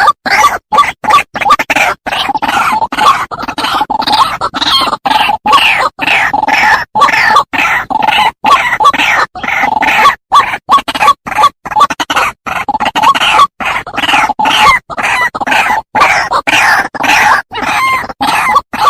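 White-breasted waterhen calls: loud, rapid, croaking notes repeated without let-up and overlapping, chopped by brief silent gaps about two to three times a second.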